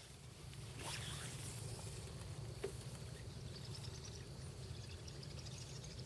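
Quiet salt-marsh ambience over a steady low rumble, with a brief swish about a second in, a single click, and faint high chirping in the second half.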